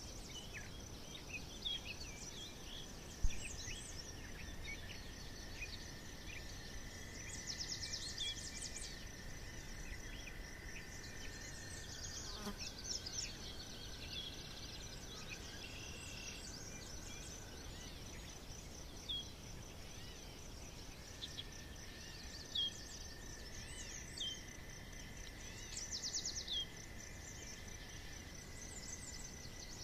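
Forest ambience: several birds chirping and trilling over a steady high drone of insects. A few long steady whistled notes come and go, and there is a brief soft low thump about three seconds in.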